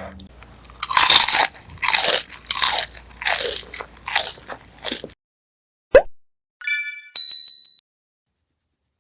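Loud crunching of crisp food being bitten and chewed, about eight crunches over four seconds, cut off abruptly. After a short swish, a chiming sound effect rings out near the end.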